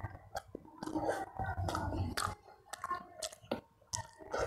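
A person chewing a mouthful of rice and curry eaten by hand, with many short, sharp mouth clicks and smacks.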